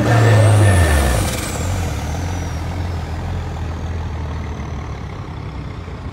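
John Deere farm tractor's diesel engine pulling hard under load against a weight-transfer sled. Its pitch drops in the first second as it lugs down, then holds steady while slowly fading. A high whistle rises over the first second and then slides down and fades.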